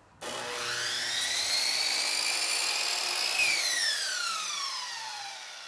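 Electric miter saw starting up with a rising whine as its blade cuts through polyurethane crown molding. About three and a half seconds in the trigger is released and the blade winds down with a falling whine.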